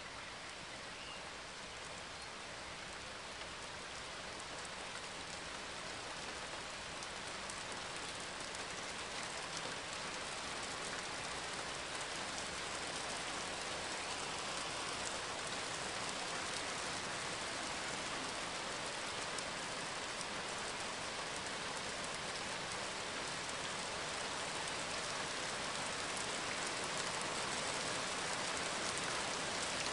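Steady rain: an even hiss with faint scattered ticks of drops, slowly growing louder.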